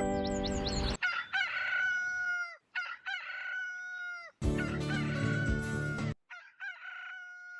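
The Sound Ideas "Rooster - Morning Call" library effect: a rooster's cock-a-doodle-doo crow, heard about four times in a row, each cut off abruptly. Music plays under the first second and under the third crow.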